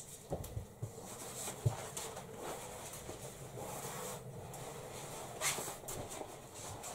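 Roller blind being handled: the stiff fabric rustling and swishing as it is unrolled off its tube, with a few light knocks in the first couple of seconds.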